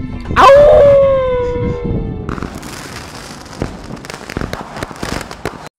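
Edited-in title sound effect: a sudden loud hit with a tone that slides downward over about two seconds, then a fireworks-like crackle of sharp pops that cuts off abruptly near the end.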